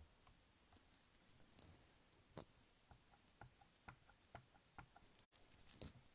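Faint handling of a rubber stamp and ink pad: scattered light taps and clicks, with one sharp click about two and a half seconds in and a quick cluster of taps near the end.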